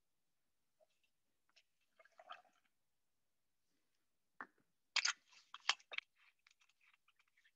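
Glass and steel bar tools knocking and clinking as a tequila bottle and a steel jigger are set down beside an ice-filled shaker glass, with crackling ticks of ice. A few faint clicks come first; the loudest knocks fall about five to six seconds in.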